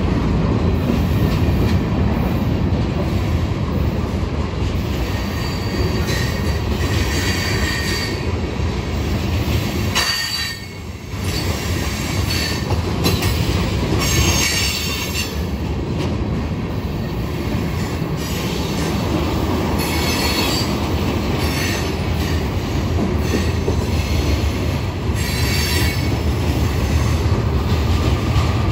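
Long freight train rolling past: a steady rumble of wheels and cars on the rails, with high-pitched wheel squeal coming and going over it. The sound dips briefly about ten seconds in.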